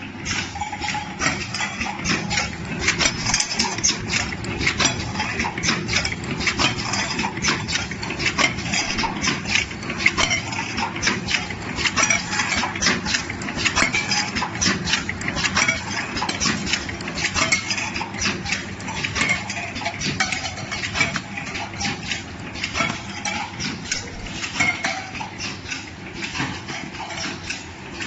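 Automatic tin can seaming machine running: a dense, irregular clatter of sharp metal clicks over a steady low machine noise.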